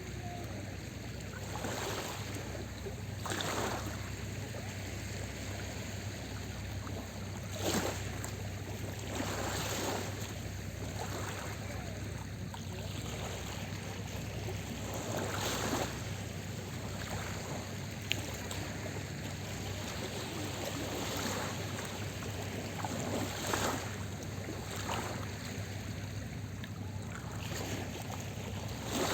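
Small sea waves breaking and washing onto the shore, a surge every few seconds, over a steady low hum.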